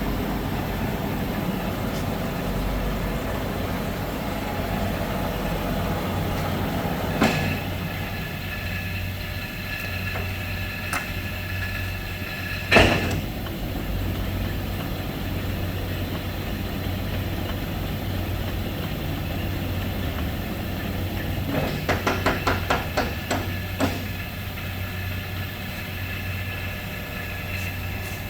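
Large 1957 Monarch engine lathe running with a steady hum. A knock about a quarter of the way in brings in a steady high whine. A louder sharp clunk comes a little later, and a quick run of clicks follows near three-quarters of the way through.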